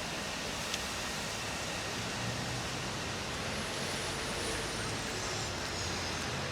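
Steady road traffic: an even hiss with a low engine rumble underneath and a faint click about a second in.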